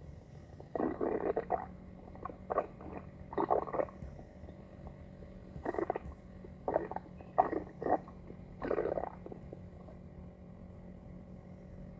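Stomach growling: a run of about ten irregular gurgles and squelches, some drawn out and some short, falling away after about nine seconds.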